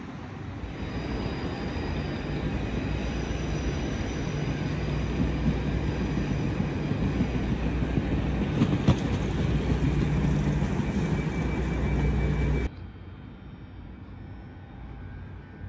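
A vehicle's steady rumble with a low hum, growing louder over about twelve seconds. It cuts off abruptly near the end, giving way to a quieter, duller background.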